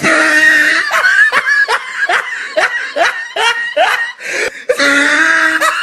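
A person's long startled shriek, breaking into rapid bursts of laughter, with a second drawn-out shriek near the end.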